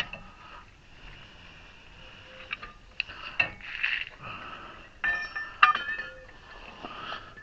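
Metal hand tools and parts clinking and clattering: a few scattered knocks, then a quick run of ringing metal clinks about five seconds in.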